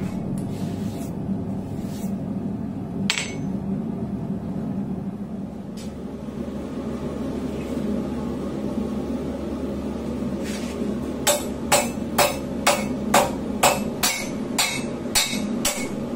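Hammer striking hot high-carbon steel on an anvil, a regular run of about two ringing blows a second starting about eleven seconds in, with a few scattered clinks earlier. A steady low roar from the lit propane forge runs underneath.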